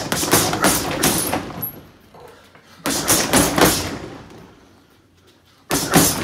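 Boxing-gloved punches landing on a water-filled heavy bag in three quick flurries of thuds, each flurry about three seconds after the last.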